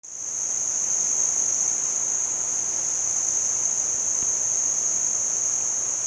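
Insect calling in one steady, high-pitched, unbroken drone.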